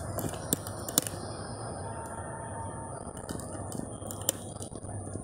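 Handling noise of a handheld phone: a few sharp clicks and knocks against the microphone over a steady low hum of room noise.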